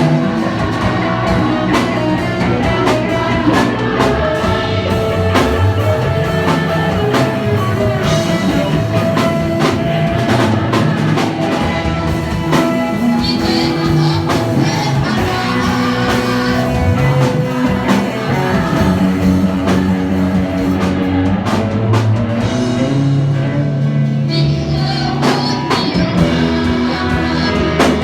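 Live worship band playing a Portuguese praise song: drum kit and guitar with singing over them.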